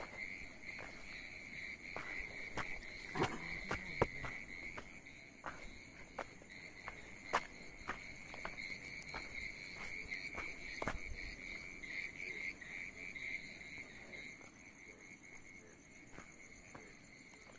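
A steady, high-pitched chorus of crickets trilling, with irregular footsteps and small knocks on a stony path over it.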